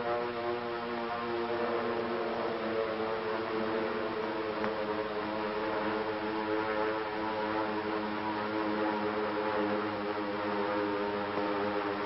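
Drone of several propeller-driven planes in flight: a steady hum of several tones together, wavering slightly in pitch.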